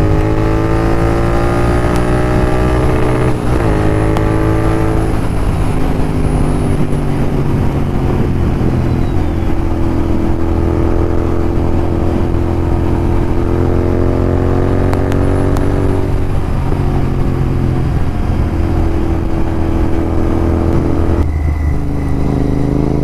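Royal Enfield Continental GT 650's parallel-twin engine running through Red Rooster aftermarket exhausts while riding. The revs rise over the first few seconds and again from about ten to sixteen seconds in, dropping back after each.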